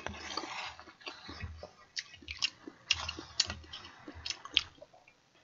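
Close-up eating sounds, with chewing and a ladle scraping and knocking against the pot as stew is served into a bowl; a quick run of sharp clicks in the middle, and the sounds stop about five seconds in.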